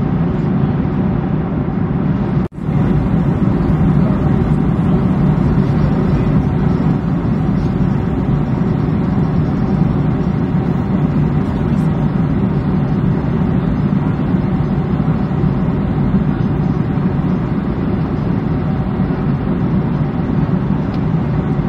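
Steady in-flight noise on an airliner flight deck: a dense rushing drone of airflow and engines, heaviest in the low range. It cuts out for a split second about two and a half seconds in.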